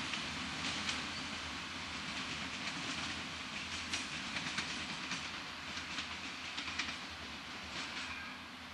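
SNCF X72500 diesel multiple unit running over station pointwork, its wheels clicking irregularly over rail joints and switches above a steady engine and running drone, which eases slightly near the end.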